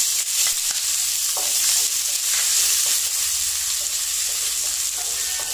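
Chopped onions sizzling in hot oil in a stainless steel kadai, stirred with a spatula that scrapes and clicks against the pan. The steady sizzle eases slightly near the end.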